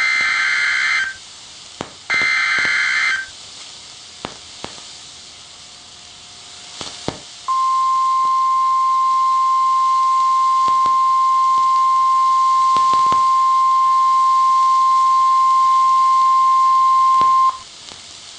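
NOAA Weather Radio EAS alert: the last two of the three SAME digital header bursts, each a harsh warbling screech lasting about a second, then a few seconds of radio hiss with scattered clicks. Then the 1050 Hz Warning Alarm Tone, a single steady high tone held for about ten seconds and cut off sharply, which signals that a warning (here a severe thunderstorm warning) follows.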